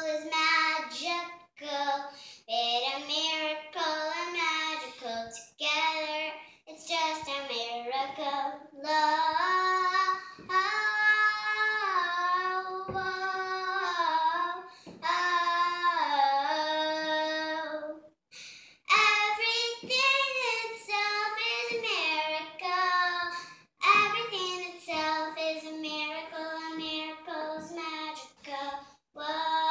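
A young girl singing solo and unaccompanied: a melody sung in phrases with held notes, with short pauses for breath between them.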